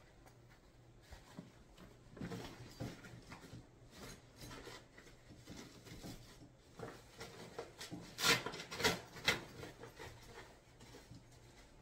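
Handling noise from unpacking a folding aluminium camp table: its fabric carry bag rustling and small knocks and clicks of the metal parts. A louder run of rustles and knocks comes about eight to nine and a half seconds in, as the rolled slat tabletop is pulled out.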